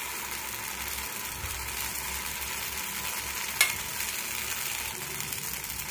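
Oats dosa batter sizzling steadily in oil on a hot dosa tawa, with one sharp tap a little past halfway.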